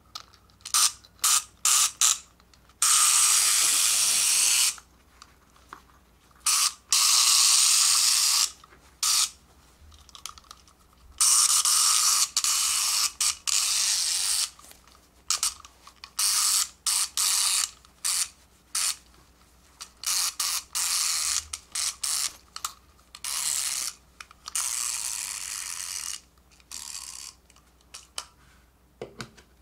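Toy sheep-shearing clippers running in many short bursts and a few longer runs of one to two seconds, switched on and off by hand.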